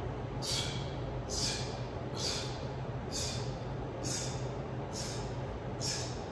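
A man's short, hissing exhalations, about seven of them just over one a second, in rhythm with fast penguin heel-touch ab reps, over a steady low hum.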